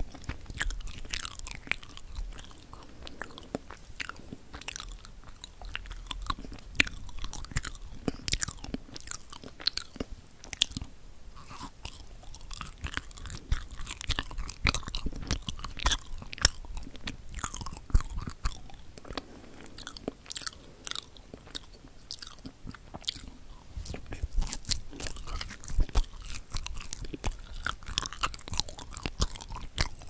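Close-miked chewing of a dense, fudgy wagashi (Japanese flower-shaped confection): soft sticky mouth sounds with many small sharp clicks, one after another.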